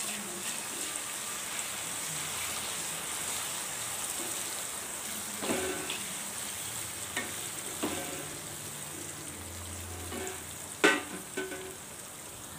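Chopped tomatoes and onions sizzling steadily in hot oil while a wooden spatula stirs them, with a few sharp knocks and scrapes of the spatula against the pan.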